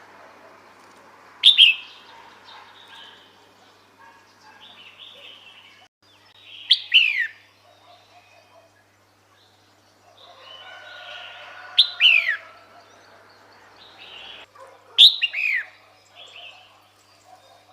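Female red-whiskered bulbul calling, the call used to draw males in: four short, sharp calls a few seconds apart, each a quick falling note, with fainter chirps between.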